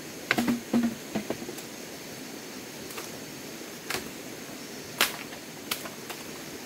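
Sharp, hollow knocks and cracks of bamboo poles being cut and handled: a quick cluster in the first second and a half, two with a brief hollow ring, then single knocks spaced out, the loudest about five seconds in, over a steady hiss.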